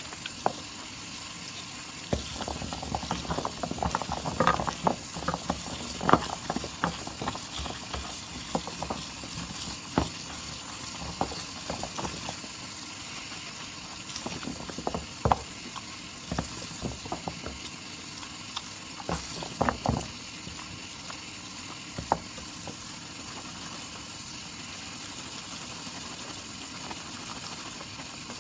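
Wet soap lather being squeezed and worked by hands: irregular squelches and crackling pops over a steady faint hiss, busiest a few seconds in, then scattered, with a couple of louder pops about two-thirds of the way through.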